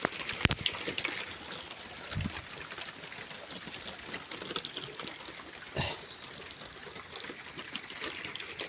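Steady rain, not very heavy, with countless small drops ticking on nearby surfaces. There are brief knocks about half a second in and near six seconds in.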